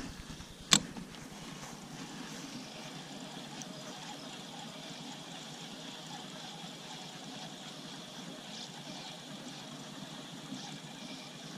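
Faint, steady outdoor background noise with one sharp click about a second in.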